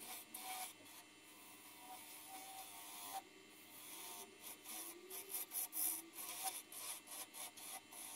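Quiet, irregular rasping strokes of a tool or abrasive rubbing on turned wood, growing quicker and louder about halfway through.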